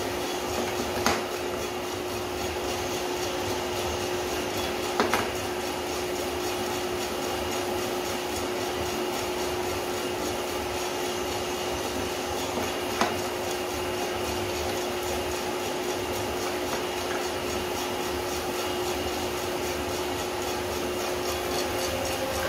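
Small drum coffee roaster running mid-roast, before first crack: a steady fan and drum hum with a constant tone, broken by three sharp knocks, about one, five and thirteen seconds in.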